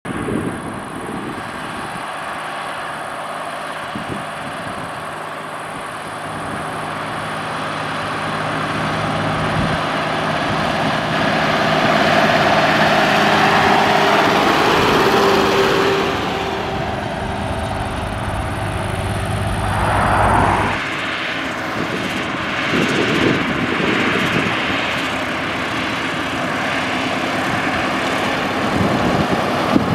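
Zetor Crystal tractor's diesel engine running steadily as it approaches and drives past pulling a loaded trailer, loudest about halfway through. After about 21 s it gives way to a different heavy diesel engine running in the field, from a Škoda Liaz 706 truck.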